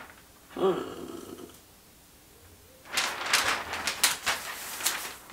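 A large sheet of tissue paper crinkling and rustling as it is gathered up and folded, over the last two seconds or so. Before it, about half a second in, a short wordless vocal sound.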